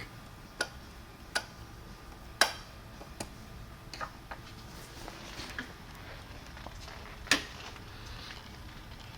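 Irregular light clicks and taps from small parts and tools being handled, with the sharpest about two and a half seconds in and another near seven seconds, over a faint steady low hum.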